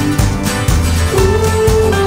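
Background music: a song with a steady beat of about two strokes a second and a long held melody note in the second half.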